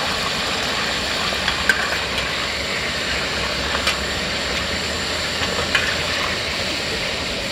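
Hot cooking oil sizzling steadily in a pot of frying crab, with a few light clicks.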